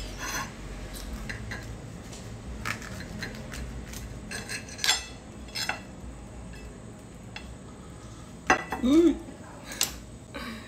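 A knife cutting through a baked cornmeal cake, clicking and scraping against the plate a few times at irregular intervals.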